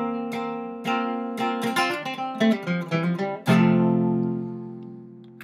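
Acoustic guitar playing the closing run of an old-time country tune: a quick line of picked notes, then a final strummed chord about three and a half seconds in that rings out and slowly fades.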